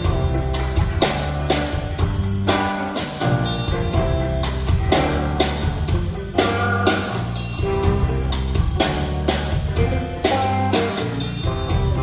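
Rock band jamming without vocals at a soundcheck: electric guitar lines over a steady drum-kit beat and held bass notes.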